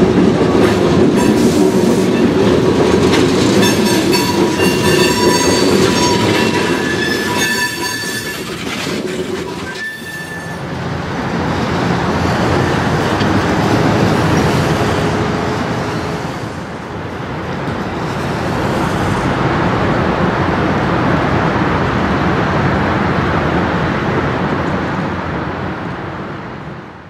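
Diesel freight locomotive and tank cars moving slowly, with wheel squeal ringing at several high pitches for several seconds. About ten seconds in, after a break, a steadier noise of a railcar mover's engine and rolling wheels moving a tank car swells and fades twice.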